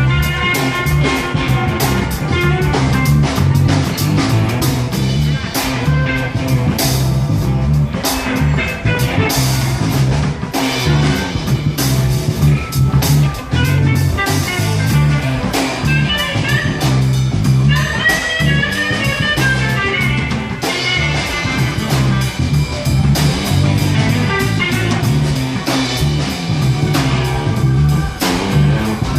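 Live blues-rock band playing loud amplified music: electric guitar over drums and bass guitar.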